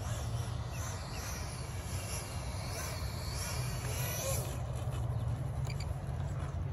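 Electric ducted fan of an E-flite F-16 70mm RC jet whining faintly, its pitch wavering as the throttle is worked on the landing approach, then dropping away about four and a half seconds in as the jet touches down and rolls out. Steady wind rumble on the microphone underneath.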